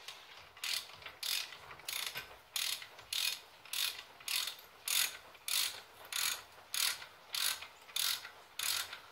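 Hand ratchet wrench being worked in steady back-and-forth strokes on a bolt at a car's front brake caliper, each back-swing giving a short burst of pawl clicks, about one and a half a second.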